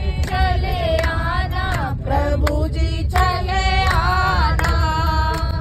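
Several women singing a Hindu devotional song (bhajan) together, with hand claps marking the beat about once or twice a second. A steady low rumble of the moving bus runs underneath.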